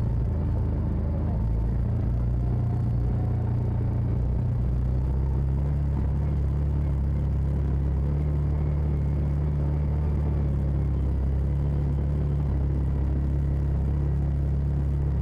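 Side-by-side UTV engine running steadily as it drives along a dirt trail, heard from inside the cab as a steady low rumble.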